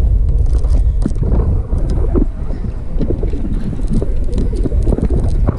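Steady low rumble of wind on the microphone, with scattered short clicks and knocks as a baitcasting reel is cranked to bring in a hooked fish.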